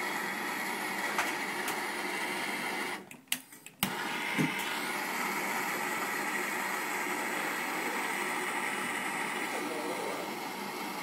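Handheld gas torch flame hissing steadily while heating aluminum line set tubing for joining with aluminum brazing alloy. The hiss cuts out briefly about three seconds in, with a few clicks, then carries on.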